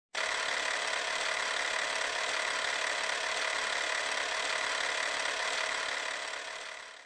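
Steady hissing noise effect edited into the logo intro, starting suddenly and fading out near the end.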